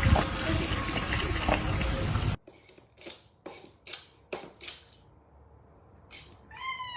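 Running water with clinks, which cuts off suddenly about two seconds in. Then come about six short, soft scuffs, and near the end a brief falling animal call.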